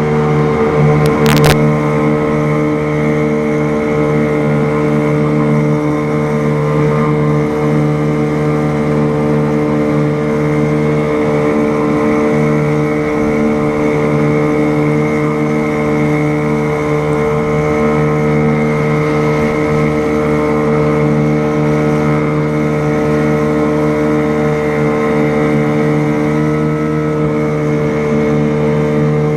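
An engine running at a steady, unchanging speed, with one sharp click about a second in.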